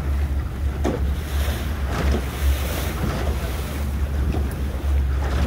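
Wind buffeting the microphone over the rush of water past a small open fishing boat under way while trolling, with a steady low rumble underneath.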